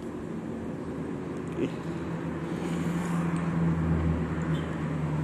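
A vehicle engine's low steady drone that starts about two seconds in, swells and then holds.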